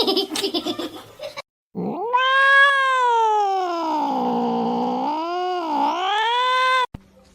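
A cat yowling: one long, drawn-out call of about five seconds that dips in pitch twice near the end and cuts off suddenly. It comes after a brief, busy sound in the first second and a half.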